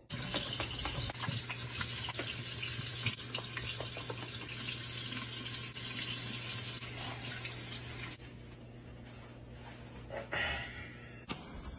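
Water running from a tap into a sink while hands are washed under the stream: a steady rush that stops about eight seconds in.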